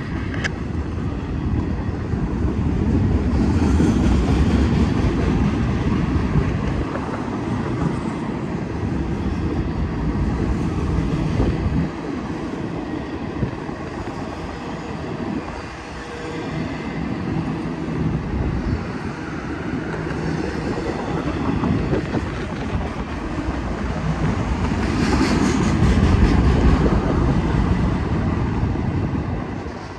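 Norfolk Southern double-stack intermodal freight train rolling past: a steady noise of steel wheels on the rails from the passing container cars, swelling louder a few seconds in and again near the end.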